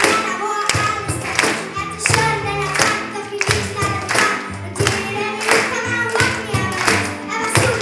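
Large youth choir singing together over a steady beat, with a sharp stroke about every 0.7 seconds.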